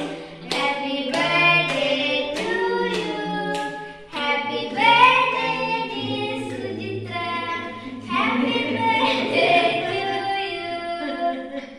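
Several voices singing a birthday song together. Hands clap in time through the first few seconds.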